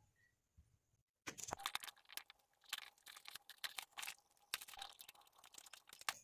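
Scissors cutting through the packing tape and cardboard of a parcel box: a faint series of short snips and tearing crackles, starting about a second in.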